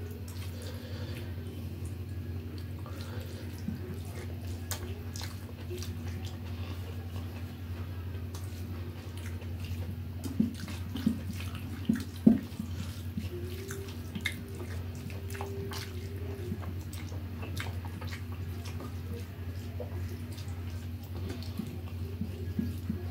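Hand-eating sounds: fingers mixing rice on a steel plate and chewing, as faint scattered clicks over a steady low hum, with a few louder clicks about ten to twelve seconds in.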